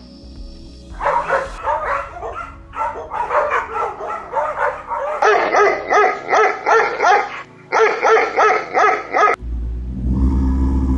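Dog yipping and barking in quick, repeated high calls, which grow louder and denser about halfway through. About nine seconds in, the calls stop and music with a deep rumble takes over.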